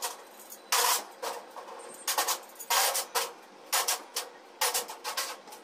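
Short, irregular strokes of work on a steel grill gate panel, about two a second, each brief and sharp-edged.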